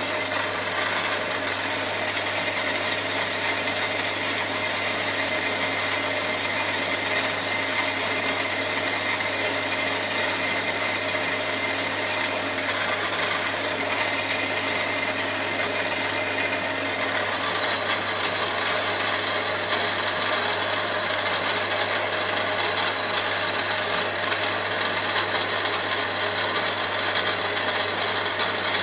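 Milling machine spindle running, with a small end mill cutting an aluminium cylinder block. The cut gives a steady whine over a constant hum, and its tone changes about two-thirds of the way through.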